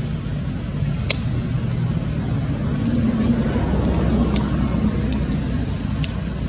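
Low rumble of road traffic, swelling to its loudest around the middle as a vehicle passes, with a few sharp ticks over it.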